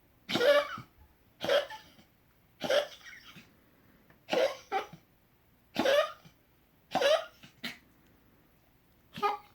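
A pet sneezing over and over in a fit: about seven sharp sneezes roughly a second apart, a few with a quick extra snort after them. Something is irritating its nose.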